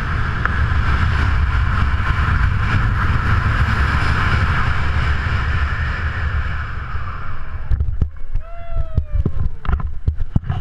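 Wind rushing over a head-mounted action camera's microphone during a BASE jump descent, cutting off about three-quarters of the way through as the jumper lands. A few sharp knocks follow, and a short call that falls in pitch.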